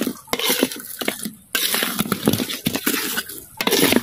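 Fried duck pieces sizzling in a pan of thick sweet-sour chili sauce as they are tossed and stirred, with clinks and scrapes of the utensil on the pan, in two long noisy stretches with a short break between them.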